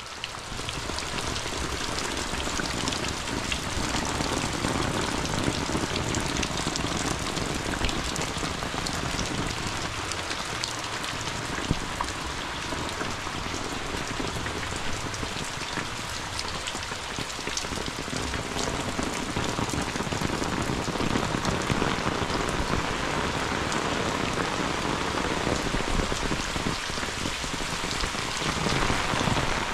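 Heavy rain pouring steadily, with many scattered drips and splashes ticking through the hiss.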